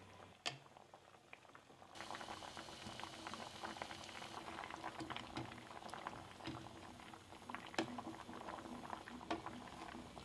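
Bamboo-shoot broth boiling hard in a wide wok, a dense crackle of bubbles that grows louder about two seconds in. A few sharp knocks come from a wooden spatula stirring against the pan.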